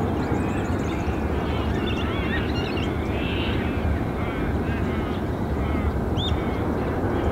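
Distant, steady rumble of a Qantas Airbus A330-300's jet engines as the airliner rolls out along the runway after touchdown, with small birds chirping over it.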